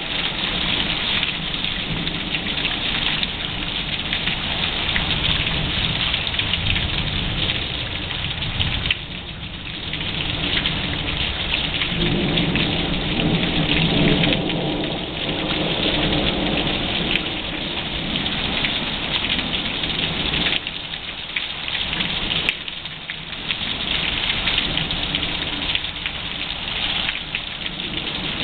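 Rain pouring steadily during a thunderstorm, with a roll of thunder rumbling in about halfway through.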